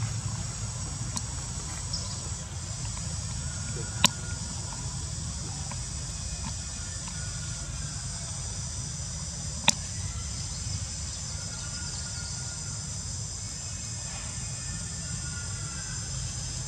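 Steady high-pitched chorus of insects buzzing in several even tones over a low rumble. Two sharp clicks, about four seconds in and again near ten seconds, are the loudest sounds.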